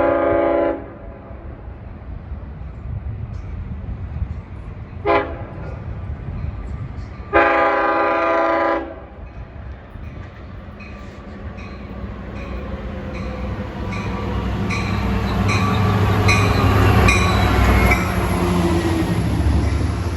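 Long Island Rail Road locomotive 512's air horn sounds in a multi-note chord: the end of a long blast, a short toot about five seconds in, then a long blast of about a second and a half, in the long-short-long pattern used at a crossing. The train then rumbles louder as it approaches and passes, with the wheels clicking steadily over the rail joints.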